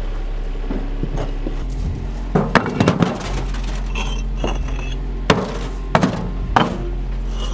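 Concrete pavers knocking and clinking against each other as they are lifted by hand and dropped into a machine's bucket: a cluster of sharp hits about two to three seconds in, then single knocks roughly every half second to second, over a steady low hum.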